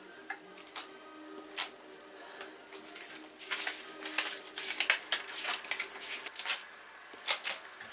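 Small clicks and knocks from fitting the pressure control valve into the top of a Brew Barrel mini keg, then rustling from handling a cardboard instruction card, from about three and a half to six and a half seconds in.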